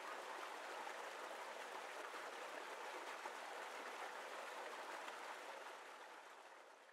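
Steady rushing noise with no pitch or rhythm, fading out near the end.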